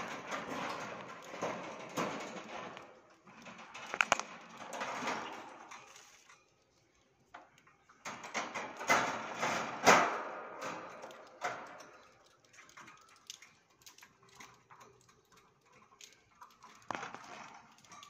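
Seed rattling and rustling as it is put into a bird cage, with sharp clicks from the wire cage. It comes in two busy spells, the second ending about twelve seconds in, and after that there are only scattered faint clicks.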